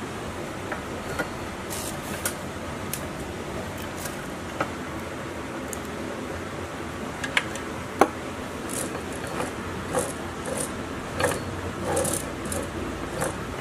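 Scattered light metal clicks and clinks as small diesel engine parts are fitted together, a steel shaft being slid into the cast crankcase. The sharpest click comes about eight seconds in, with more small knocks near the end over a steady background hiss.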